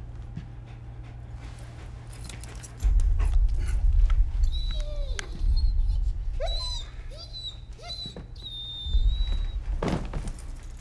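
German Shepherd dog whimpering and whining in high, wavering cries while it is being poisoned with a cyanide capsule forced into its mouth. One longer whine comes near the end. Under it, a deep low drone starts about three seconds in, and a short louder noise comes just before the end.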